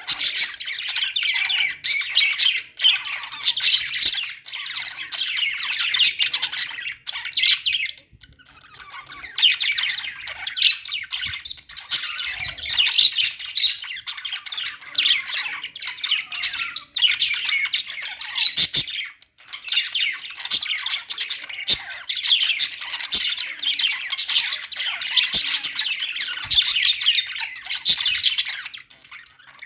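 Budgerigars chattering and warbling, a dense, nearly continuous mix of chirps and squawks from several birds, with short lulls about eight seconds in and again around nineteen seconds.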